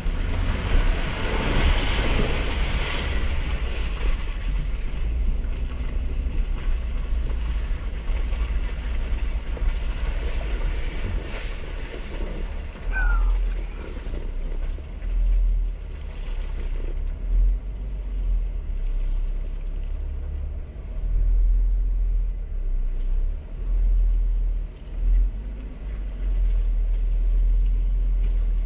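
A 4x4 driving slowly along a muddy forest track and through standing puddles: a low, uneven rumble from the vehicle and road, with a stronger wash of splashing water in the first few seconds.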